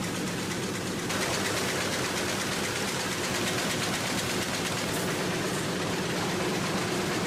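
Printing press running: a steady mechanical din with fast, fine ticking, a little louder from about a second in.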